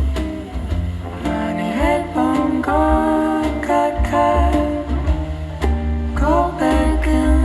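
A song with a singing voice over plucked guitar and a deep plucked bass line, played back through a Tektron 2A3/300B tube amplifier and Cube Audio Jazzon fullrange speakers and recorded off the speakers.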